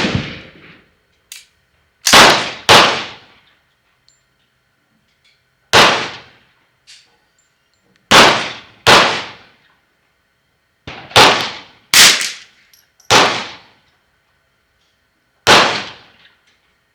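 Ruger 10/22 .22 rimfire rifle shots, about nine single shots fired at an uneven pace, several in pairs less than a second apart, each a sharp crack with a short fading tail.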